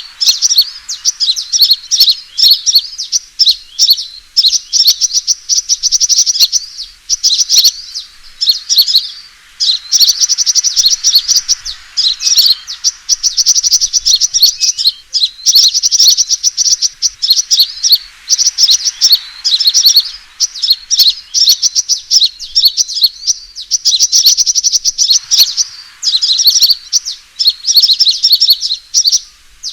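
Sunbird song played as a trapping lure: rapid, high twittering trills in bursts of one to three seconds with short gaps between, the call of sunbirds fighting.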